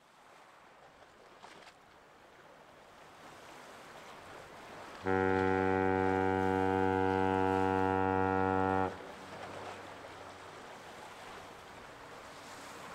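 Great Lakes freighter Philip R. Clarke's ship's horn sounding one long, low, steady blast of about four seconds, a fog signal sounded at regular intervals to warn other vessels in thick fog. Faint water lapping on the breakwater rocks is heard around it.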